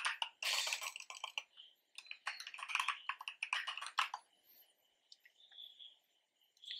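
Typing on a computer keyboard: a quick run of keystrokes for about four seconds, then a few scattered key clicks.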